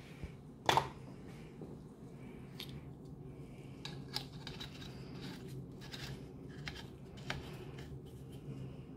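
Small clicks and scrapes of tin-plate parts being handled as the steam-jet cap is fitted and screwed onto the sheet-metal boiler can of a Whizzer toy steam turbine, with a sharper knock a little under a second in.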